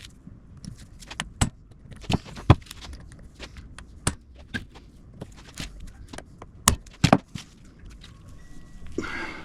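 Hammer blows on a disassembled diesel starter motor, knocking its housing apart: about ten sharp knocks at uneven intervals, the hardest near the middle and a cluster of three about seven seconds in.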